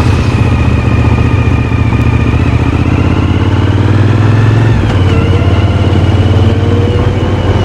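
Suzuki SV1000's 90-degree V-twin running through a GPR aftermarket silencer, the engine note climbing slowly, dropping about five seconds in as at a gear change, then climbing again.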